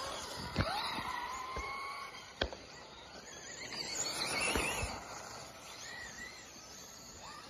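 Small RC buggy's electric motor whining: it rises in pitch as the car speeds up about half a second in, holds, then warbles through the throttle changes near the middle, over a steady outdoor hiss with a couple of sharp knocks.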